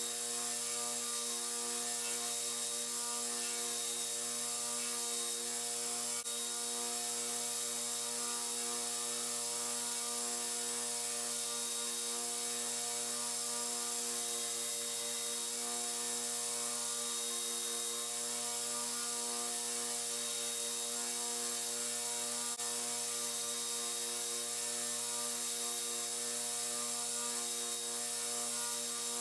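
Belt grinder running steadily, its abrasive belt sanding down a knife's maple handle scales: an even motor hum with a constant hiss from the belt.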